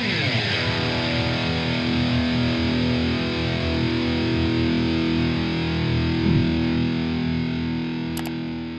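Intro music: a held, distorted electric guitar chord that slides in pitch at the start, then rings on and slowly fades. A couple of faint clicks come near the end.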